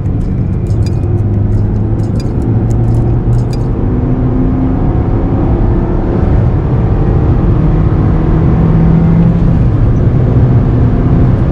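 A small 1100cc car's engine and exhaust heard from inside the cabin, pulling under load with a deep, menacing note whose pitch climbs in stretches as it accelerates.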